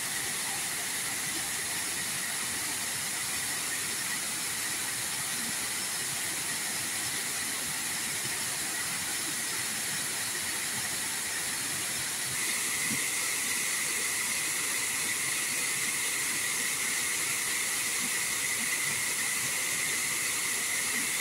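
Water spilling over a low concrete dam's spillway into the river below, a steady, even rush of falling water that grows slightly louder about twelve seconds in.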